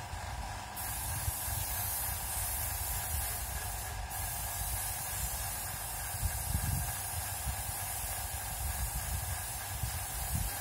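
Small compressed-air paint spray gun on a coiled air hose hissing steadily as it sprays. It starts about a second in and stops for a moment near the middle.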